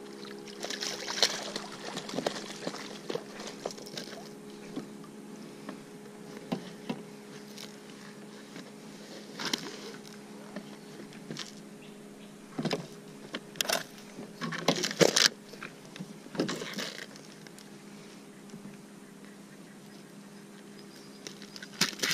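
Scattered knocks, clicks and rustles of a landing net and fishing gear being handled on a plastic kayak with a small bass in the net, busiest a little past halfway. A steady low hum runs underneath.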